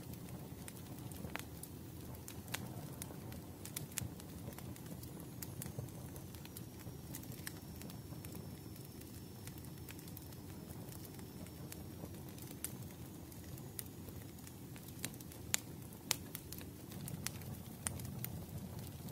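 Wood fire crackling: irregular sharp pops and snaps over a steady low rush of burning logs.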